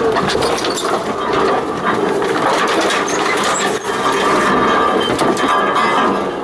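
Off-road vehicle driving slowly over a rough, rutted track, heard from the cab. The engine runs with a steady drone under continual knocks and rattles from the body and suspension as it bounces over the ruts.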